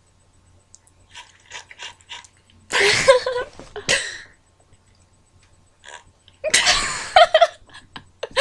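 Played-back vocal sound effects of bodily noises: a loud, noisy burst about three seconds in with a short second one just after, then another loud burst about six and a half seconds in.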